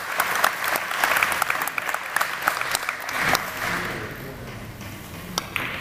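Audience applauding: a dense patter of hand claps that thins out and fades after about three and a half seconds.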